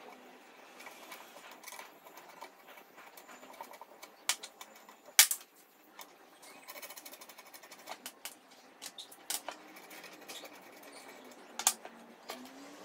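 Hand assembly of a metal-and-plastic angle grinder stand: scattered clicks and knocks of parts being fitted and set down, the sharpest about five seconds in, followed by a quick run of rattling ticks.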